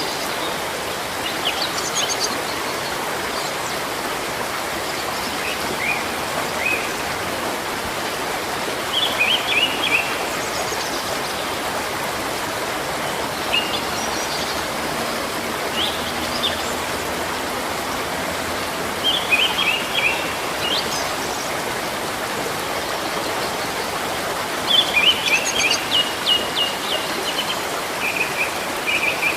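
Steady rush of flowing water, like a stream, with small birds chirping in short phrases every few seconds. The liveliest bursts of chirping come about 9, 19 and 25 seconds in.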